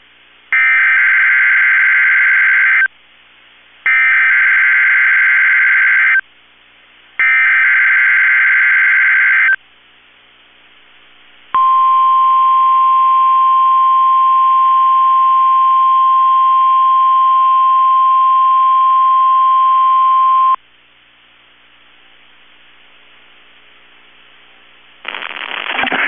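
NOAA Weather Radio test alert: three identical bursts of digital header data tones, each a little over two seconds long. A few seconds later comes the weather radio warning alarm tone, a single steady high pitch held for about nine seconds. It ends abruptly, leaving faint hiss.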